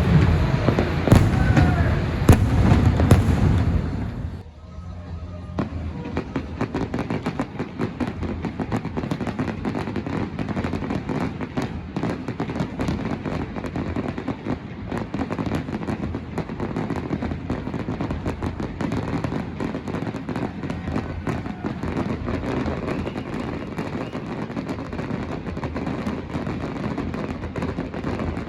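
Fireworks finale: loud repeated bursting shells with whistling glides and show music for the first four seconds, then an abrupt stop. This gives way to a steady, dense crackling noise that lasts the rest of the time.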